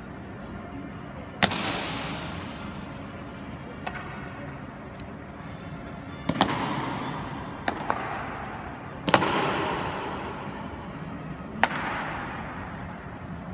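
Honor guard's boots stamping on a marble floor in a slow high-step march: four loud stamps a few seconds apart, each ringing out in a long echo through the stone hall, with a few fainter clicks between them.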